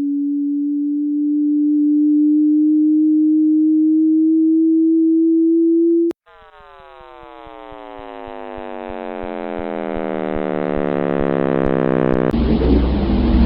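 Synthetic tones from a sonification of spacecraft signal data. A single pure tone holds for about six seconds, creeping slightly upward in pitch, and cuts off with a click. Then a tone rich in overtones glides steadily down in pitch while growing louder, and about a second before the end a loud rumbling noise takes over.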